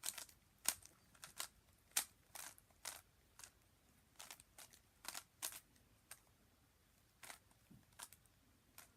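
Zcube M speed cube being turned by hand: short, sharp clicks of the layers turning, coming irregularly, several a second at times.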